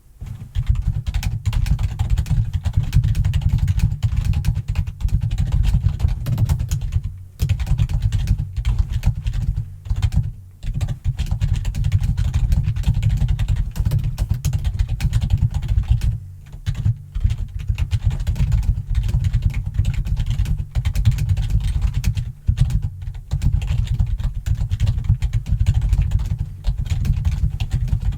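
Fast, loud typing on a computer keyboard: a near-continuous clatter of keystrokes with a deep thud to them, broken by a few brief pauses.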